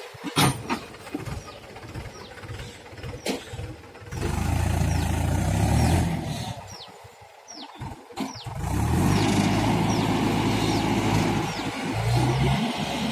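A vehicle engine running in spells: it drops away twice for a few seconds and comes back. There are a couple of sharp clicks near the start and faint short chirps over the top.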